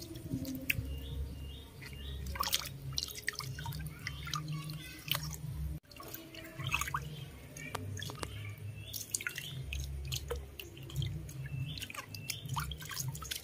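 Water in a shallow plastic basin dripping and splashing lightly as baby monkeys shift and paddle in it: scattered irregular drips and small splashes over a steady low rumble.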